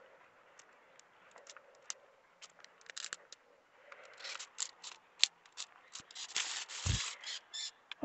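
Sweet potato vines and leaves rustling and scraping as they are handled, in scattered small crackles that grow busier in the second half, with one dull thump about seven seconds in.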